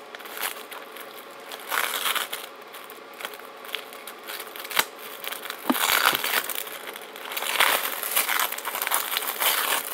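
Clear plastic shrink-wrap on a brick of firecrackers crinkling and tearing as fingers pick at it and peel it open, in irregular rustles and crackles.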